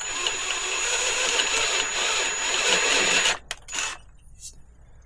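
Power drill running with a larger bit, opening up a rivnut hole in a metal bicycle frame for about three and a half seconds, then stopping. A few light clicks follow.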